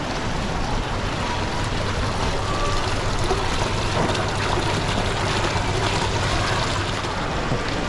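Water trickling and bubbling steadily in a fish pond, over a low steady hum.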